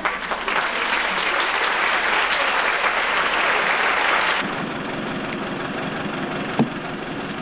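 Audience applause that cuts off abruptly about four seconds in. It gives way to a quieter, steady low rumble with one sharp knock near the end.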